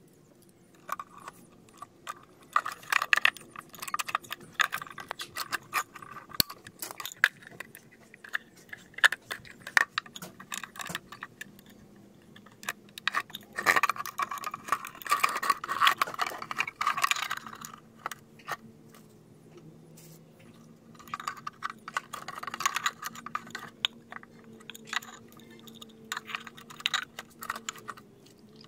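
PVC pipe pieces being handled and fitted together by hand: clicks, knocks and scraping of hard plastic on plastic, mixed with light metallic clicks from a small metal hinge. The sounds come in several bursts, with the longest and loudest stretch of scraping about halfway through.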